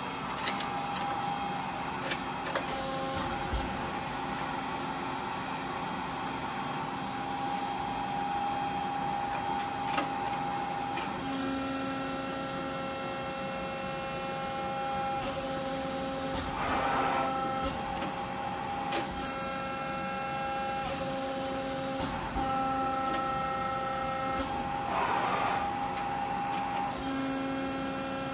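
Accurpress Advantage CNC hydraulic press brake running: a steady machine hum with several whining tones that switch on and off and change every few seconds as the machine moves, and a few sharp clicks in the first few seconds.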